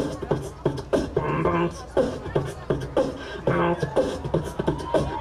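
Human beatboxing into a microphone: one performer making two rhythms at once, a steady beat of sharp percussive strokes about three a second together with a short hummed, pitched line between them, imitating two DJ turntables playing together.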